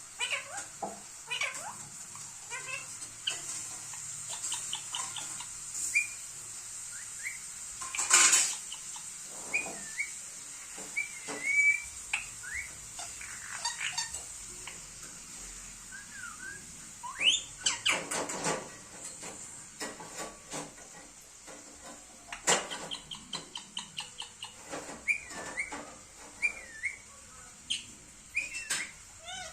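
Pet Indian ringneck parrot whistling and chirping: many short calls that slide up and down in pitch, broken by a few louder harsh screeches about 8 and 18 seconds in.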